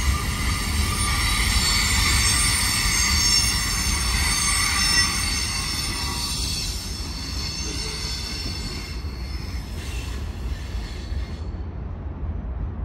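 Freight train wheels squealing against the rails as the last cars pass, several shrill tones at once over a low rolling rumble. The squeal fades after about six seconds and dies out near the end, leaving only the rumble.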